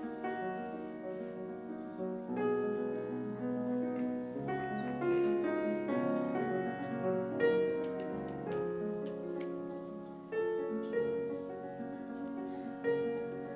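Solo grand piano playing: chords and melody notes struck and left to ring, changing about every second.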